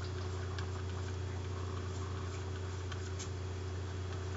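Steady low hum of the recording setup, with a few faint, scattered ticks of a stylus drawing on a tablet screen.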